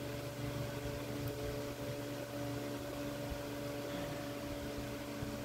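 Steady machine hum with a few constant tones, like a fan or other running appliance.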